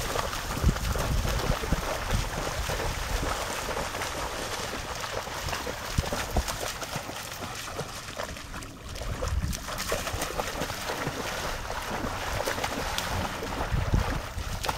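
Water splashing and sloshing as a horse and several dogs wade and run through a shallow pond, with irregular splashes throughout that let up briefly about halfway through.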